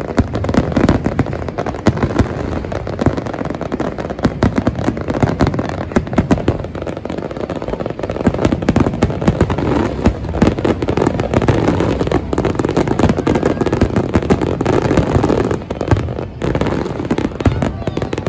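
Aerial fireworks display in a heavy barrage: a dense, unbroken run of loud shell bursts and bangs, easing briefly about sixteen seconds in before picking up again.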